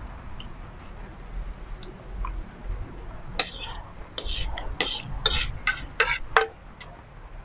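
Metal spoon scraping and clinking against a ceramic plate while scooping soup. After a few quiet seconds comes a quick run of about ten scrapes and clinks in the second half.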